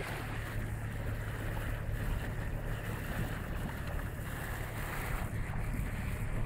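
Wind buffeting the microphone over the rush of water along a sailing yacht's hull and bow wave, with a steady low hum underneath.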